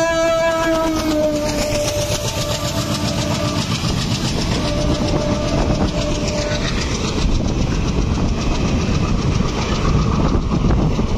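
An Indian Railways WDG3A Alco diesel locomotive passes at speed with its horn sounding. The horn dips in pitch as the loco goes by and cuts off about a second in, then sounds again, fainter, around five seconds in. Its passenger coaches follow in a steady loud rumble with a fast, rhythmic clickety-clack of wheels over the rail joints.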